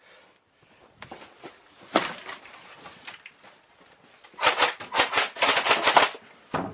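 Airsoft gun firing a quick string of about ten sharp shots, some six a second, after a lone clack and light crunching and rustling.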